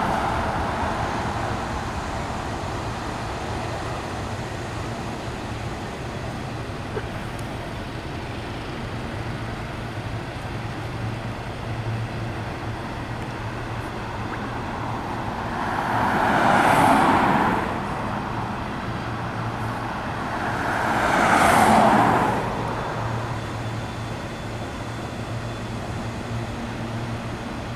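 Road traffic: two cars pass by one after another, each swelling and fading within a couple of seconds, about 16 and 21 seconds in, over a steady low rumble.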